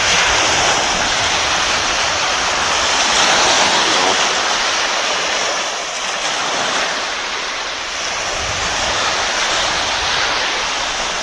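Loud, steady rushing of river water, a dense even hiss with little low rumble.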